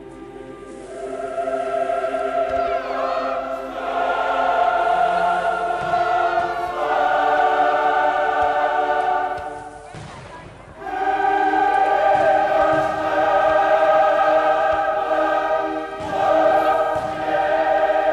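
Classical choral music: a choir singing long held chords with accompaniment, breaking off briefly about ten seconds in before the chords return.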